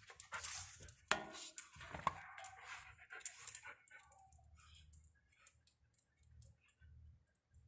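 A dog moving about right at the microphone: a run of clicks and rustling noises in the first few seconds, thinning out to faint scattered clicks.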